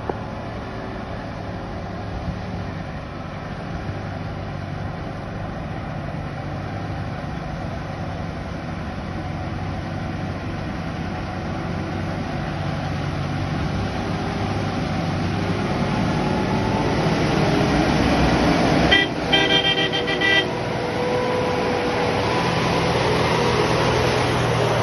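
Truck engine running steadily on the road, growing gradually louder. About three-quarters of the way through, a vehicle horn sounds for about a second and a half.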